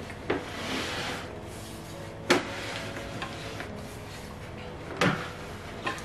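A small glass tank is turned around on its round wooden base, with a soft scraping and a few sharp knocks as it is handled and set down, the loudest about two seconds in.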